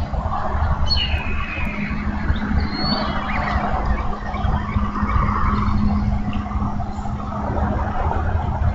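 Outdoor nest-cam microphone ambience: a steady low rumble with a constant hum, broken by a few short high chirps about a second in and again around three seconds in.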